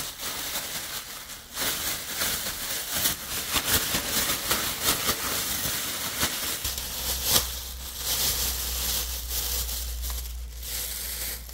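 Thin plastic bag crinkling and rustling as it is shaken hard with eel bones and pancake batter mix inside, coating the bones in the powder. Near the end the coated bones are tipped out of the bag onto a steel tray.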